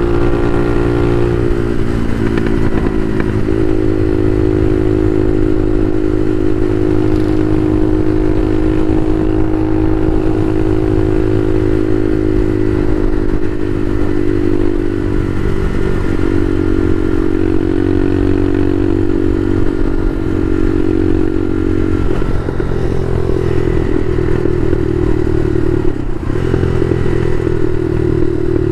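Bashan Motomax 250 supermoto engine running under way. The pitch shifts several times as the revs change between gears, then falls slowly over the last few seconds.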